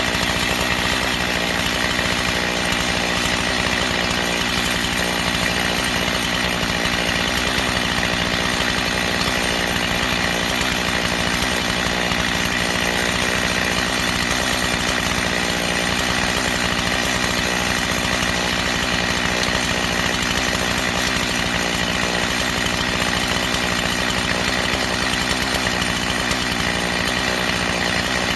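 Two-stroke chainsaw running steadily without a break, cutting wood.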